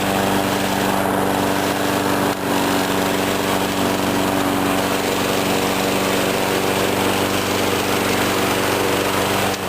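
Walk-behind lawn mower's Briggs & Stratton single-cylinder engine, which the owner believes is 5 horsepower, running steadily at throttle. It has just started on the first pull after priming.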